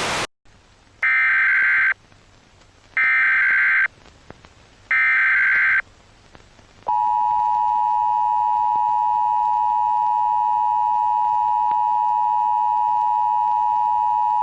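Emergency Alert System tones: three short SAME data-header bursts, each just under a second with about a second between them, then the steady two-tone attention signal held for about eight seconds. A hiss of static cuts off right at the start.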